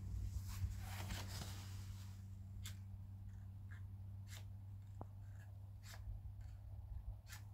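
Repeated short, scratchy strikes, about one every second and a half, as someone tries to strike a light for a small fire of dry twigs. There is soft rustling in the first two seconds and a faint steady low hum underneath.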